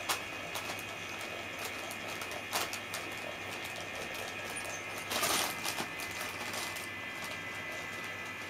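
Crinkly plastic bag cat toy rustling in short bursts as a cat paws and bats at it. The loudest, longest rustle comes about five seconds in.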